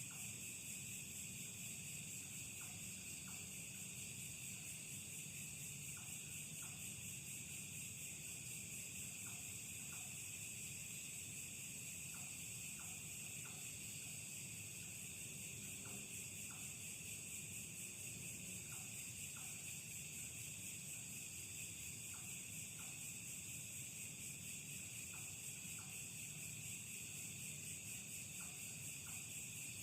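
Steady high-pitched chorus of crickets and other night insects, with faint short chirps, often in pairs, every second or two underneath.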